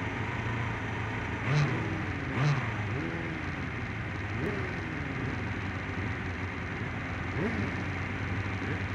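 Race motorcycle engines idling on the start grid, with two sharp throttle blips about one and a half and two and a half seconds in, and lighter revving later.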